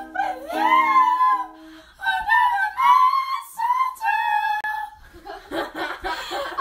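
Two girls singing in high, wordless voices in a small room, breaking into laughter near the end.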